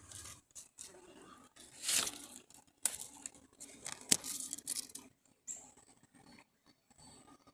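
Irregular rustling and crackling, with sharp clicks about two, three and four seconds in, dying down to faint ticks in the last couple of seconds.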